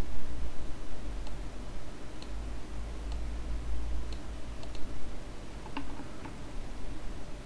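Computer mouse clicking, about half a dozen single sharp clicks spaced irregularly, over a steady low rumble.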